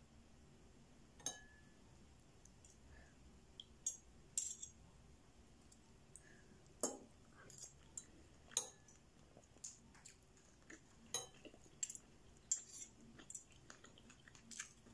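Metal spoon and fork clinking and scraping against a ceramic soup bowl: quiet, scattered clinks, about a dozen over the stretch.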